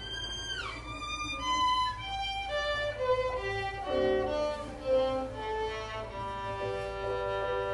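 Violin with piano accompaniment: the violin slides down in pitch, then plays a run of short notes stepping downward, settling into held lower notes over the piano.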